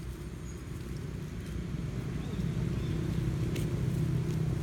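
A motor vehicle's engine running steadily, growing louder about two seconds in, with a brief click near the end.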